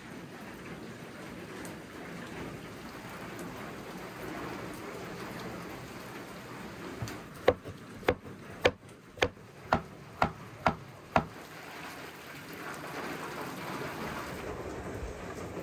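Steady rain falling, with a wide-bladed kitchen knife chopping cucumber on a wooden cutting board about halfway through: eight sharp strikes, a little under two per second.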